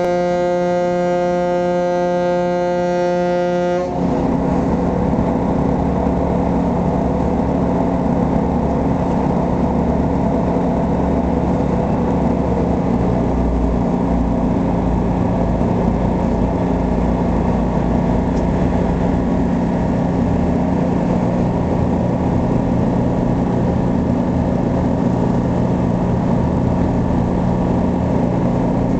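Ferry's horn blowing one long blast at close range, cutting off about four seconds in. After it the ferry's engines keep up a steady drone.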